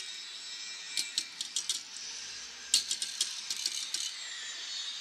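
Wire whisk beating quiche filling in a stainless steel bowl, its wires clicking against the metal in two runs of quick, uneven taps, about a second in and again near the middle, over a steady background hiss.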